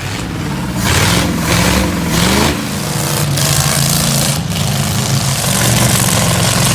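An engine revving up and down a few times, then running at a steady speed.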